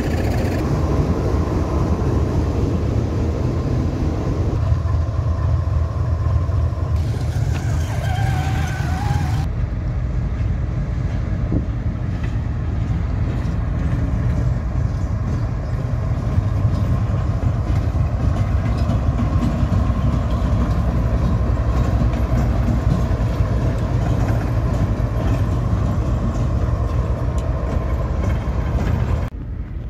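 Diesel locomotive engine running with a steady, deep rumble, close at hand.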